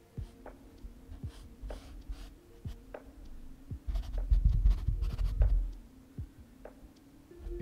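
Small filbert paintbrush tapping and dragging acrylic paint across a stretched canvas, recorded close: short scratchy dabs and ticks, with a run of louder dull thuds from the canvas about four to five and a half seconds in.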